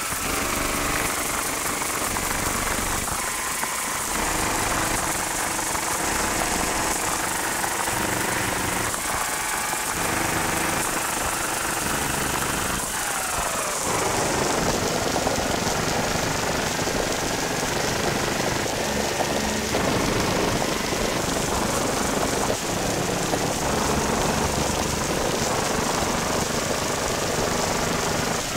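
Yamaha TG33 vector synthesizer playing a creepy sound-design patch: a dense, noisy, hissing texture with gliding tones that slide slowly up and down. About halfway through the hiss loses its top end and a falling sweep sets in.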